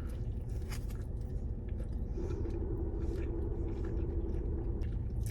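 A person chewing and biting food close to the microphone, with small soft clicks, over a steady low hum inside a car; a steady humming tone joins about two seconds in.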